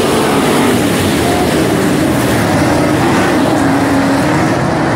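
A field of street stock race cars' V8 engines running hard at race speed: a loud, continuous engine din whose pitch wavers up and down as the cars pass and work the throttle.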